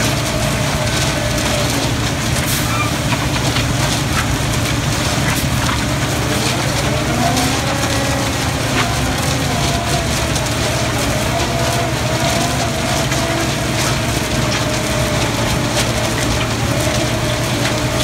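Miller Formless 8800 slipform paver running steadily as it extrudes a concrete barrier wall, with a continuous low engine drone. A whining tone above the drone wavers and rises about seven seconds in.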